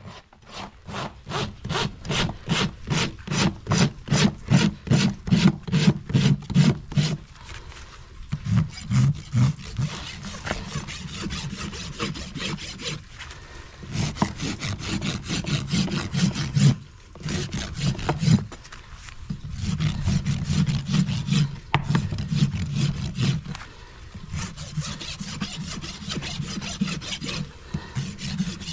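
Farrier's hoof rasp filing a horse's hoof wall in back-and-forth strokes, about two or three a second at first, then in longer runs of rasping broken by short pauses.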